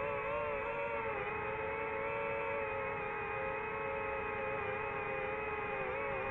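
DJI FPV drone's propellers and motors whining steadily, the pitch wavering and dipping a little as the throttle changes.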